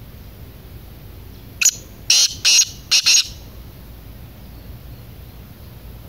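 Black francolin (kala teetar) calling: one loud note, then two, then a quick pair, five short notes in about a second and a half.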